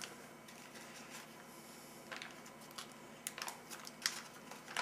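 Crinkling and rustling of a foil MRE retort pouch being handled and opened: several short, separate crinkles.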